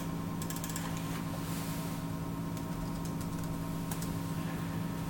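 Keys clicking in short bursts of typing on a computer keyboard, the Commodore USA Vic Slim's built-in keyboard, over a steady electrical hum.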